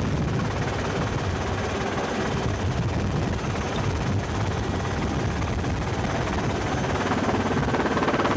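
Helicopter rotor and turbine running in flight, heard from inside the cabin, with a pulsing rotor beat that grows more regular and a little louder near the end.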